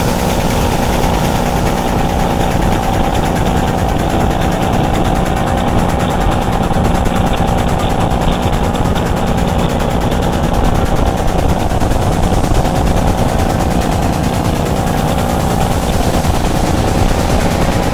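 Jetboat engine running steadily at speed, a rapid pulsing drone that holds one pitch, over the rush of the wake.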